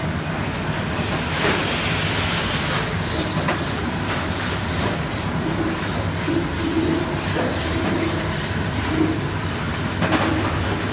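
PFM Pearl horizontal flow-wrapping machine running, a steady mechanical rattle and hum with irregular sharp clicks and a repeating clatter.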